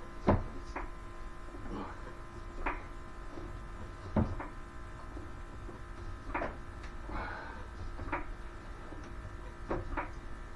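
Car jack being worked to lift the car: a series of short metallic clanks, roughly one a second and unevenly spaced, over a steady hum.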